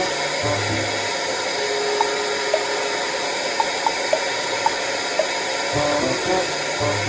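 Hair dryer blowing steadily, with background music coming and going over it and a few short, high plinking notes.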